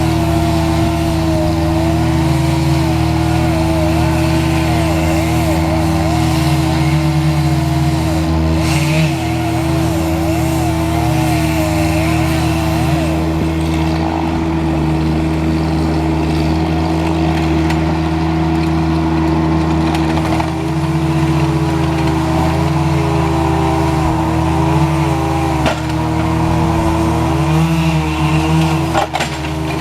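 Engine of heavy tree-removal equipment running steadily at high throttle, its pitch wavering slightly as the load changes.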